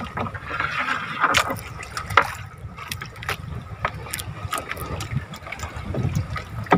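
Water splashing and trickling around a small fishing boat, with scattered light knocks and clicks throughout.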